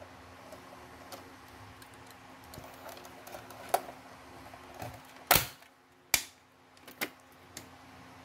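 Plastic case of a Huawei B315s-936 modem being pried open by hand: its snap-fit clips give way in scattered sharp clicks and snaps, the two loudest about five and six seconds in.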